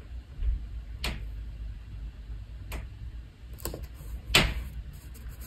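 Fingers handling and pressing a paper planner sticker onto a planner page: a few light clicks and taps on the paper, the loudest a little over four seconds in, over faint handling noise.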